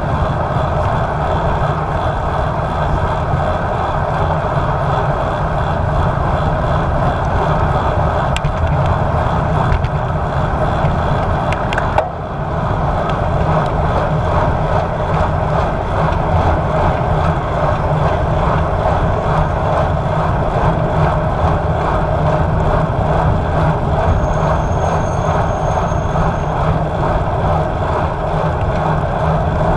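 Steady wind rush and road noise on a bike-mounted action camera's microphone while riding a road bike at speed, with a faint click and a brief dip about twelve seconds in.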